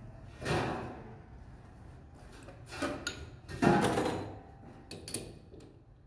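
Metal clunks from a lathe's handles and levers being worked by hand: a handful of separate knocks, each with a short ring, the loudest a little past halfway.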